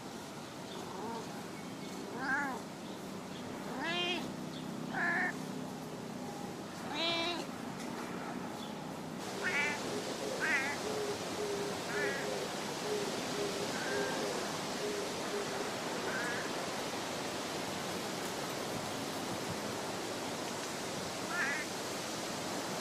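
Stray cat meowing in short, soft calls, about ten of them a few seconds apart, as it is stroked: sultry little cries rather than loud meowing. A steady background hiss rises about nine seconds in.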